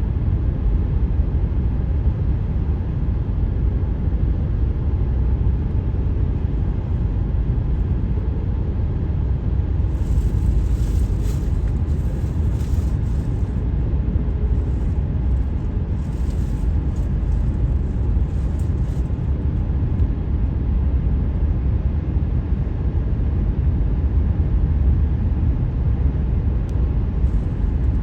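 Car driving on a highway: a steady low rumble of tyre and road noise, with stretches of hiss about ten seconds in and again around sixteen seconds.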